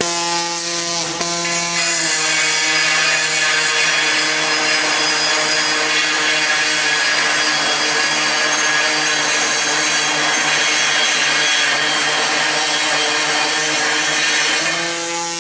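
Electric power cutting tool cutting steel stock: the motor hums steadily, drops slightly in pitch about two seconds in as the blade bites, and a harsh steady cutting noise runs until near the end, when the tool runs free again.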